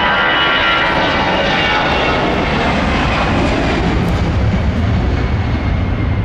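Jet airliner's engines passing by: a loud whine of steady high tones fades over the first few seconds while a deep rumble builds towards the end.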